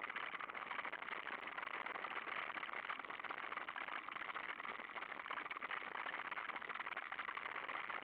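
Mountain bike rolling over a loose gravel track: a steady crunch of tyres on stones mixed with the bike's rattle.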